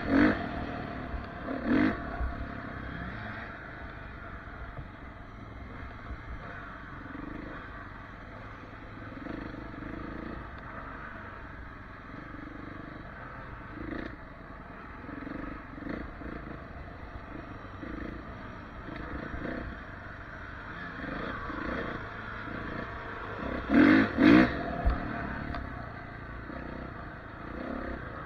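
Dirt bike engine running while riding over a rutted mud track, heard from a camera mounted on the bike. A few loud knocks stand out, one about two seconds in and two close together near the end.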